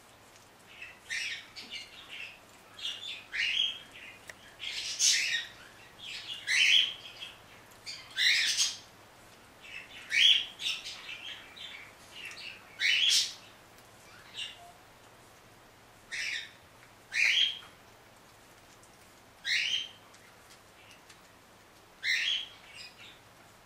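Shih Tzu puppies squealing and whining in short, high, rising cries. The cries come about once a second at first and thin out to every couple of seconds later on.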